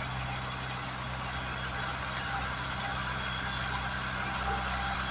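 Heavy diesel road-construction machinery running steadily, a low engine hum under a broad mechanical noise.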